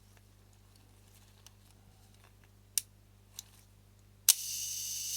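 Leaf shutter of a Mamiya-Sekor C 127mm f/3.8 lens firing near the end: a sharp click, a steady buzz for about a second, then a closing click. The shutter works again after reassembly.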